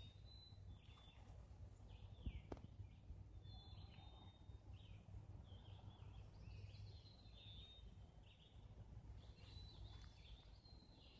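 Faint songbirds calling: short high chirps and whistles, several falling in pitch, coming again and again over a low background rumble, with a single light tap about two seconds in.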